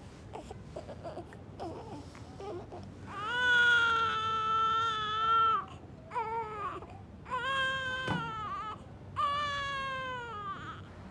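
Newborn baby crying. After a few faint sounds it breaks into four long wailing cries from about three seconds in; the first is the longest and loudest. A sharp click comes during the third cry.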